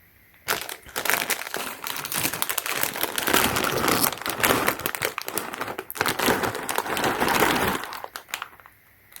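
Plastic packaging crinkling and rustling as it is handled, starting about half a second in and stopping shortly before the end.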